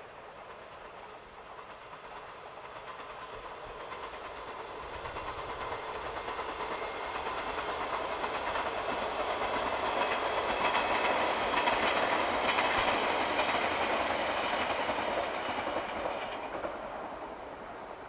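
JR 381 series 'Yakumo' limited express electric train passing at speed. The wheel and track noise builds over about ten seconds, is loudest a little past the middle, then fades quickly near the end.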